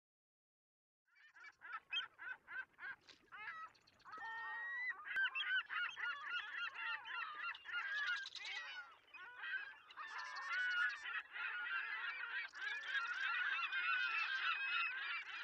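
A flock of birds calling in many short, overlapping honking calls. Separate calls at first, thickening into a dense chorus about four seconds in.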